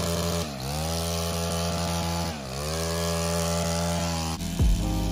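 Stihl KombiSystem power tool with a pole attachment running at high speed while trimming a shrub. Its steady motor pitch sags and recovers twice.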